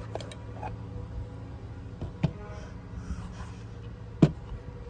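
Plastic power-tool battery housing being handled and pulled off its lithium-ion cell block, with light scraping and small ticks and two sharp knocks, one about two seconds in and a louder one near the end.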